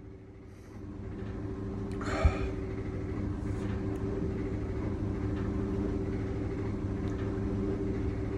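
A steady low rumble and hum that grows louder about a second in, with one short sneeze about two seconds in, ending in a sharp thump.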